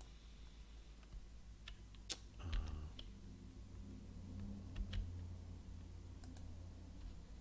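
Computer keyboard and mouse clicks while a web address is typed: a handful of scattered sharp clicks, over a steady low electrical hum.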